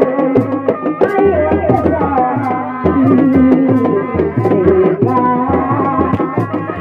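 A Sundanese reak ensemble playing: a reedy tarompet melody bending up and down over a steady beat of dogdog drums, about two strokes a second.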